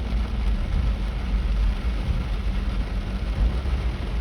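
Pickup truck driving through floodwater: a steady low engine rumble under an even rush of noise.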